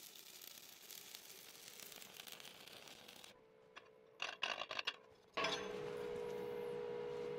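Shielded metal arc (stick) welding with a 7018 rod: the arc crackles and hisses steadily, then cuts off after about three seconds. A chipping hammer then knocks slag off the fresh weld in a quick run of sharp strikes. About five seconds in, a steady hum-like tone starts and holds.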